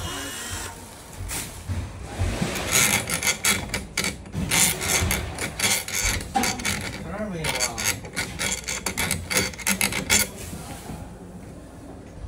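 Metal door lever handle and mortise lock hardware being fitted by hand: rapid scraping, rubbing and clicking of metal on metal, busiest from about two seconds in until about ten seconds.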